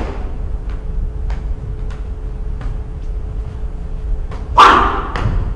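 A loud, short, bark-like shout from a kung fu practitioner about four and a half seconds in, over a steady low rumble with faint scattered knocks from the paired form's strikes and footwork.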